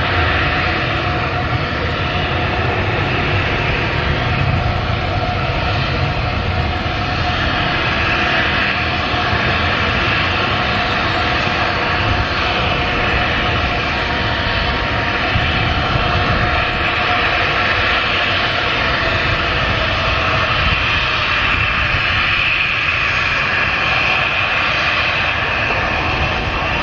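Jet airliner engines running loud and steady, a continuous rush with a steady whine over it.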